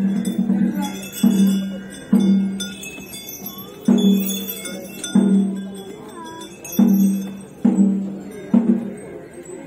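A low metal gong struck again and again at an uneven pace, roughly once a second, each stroke ringing and fading, with small bells tinkling over it through the first half.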